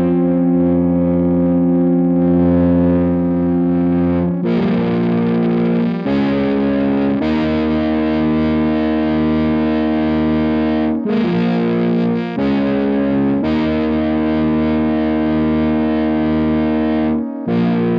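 Digital synthesizer playing held chords through a Strymon Iridium amp and cabinet simulator pedal, giving it an amp-like tone. The chord changes every one to four seconds.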